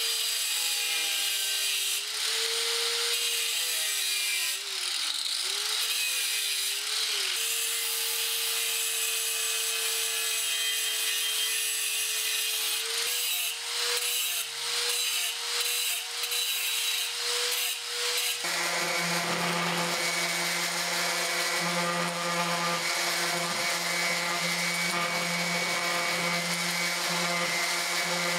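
Angle grinder running and grinding the teeth off a steel reciprocating saw blade, its pitch sagging and recovering as it is pressed into the metal, with a few short breaks in contact. About eighteen seconds in, a different power tool with a lower, steadier tone takes over, working the blade's edge.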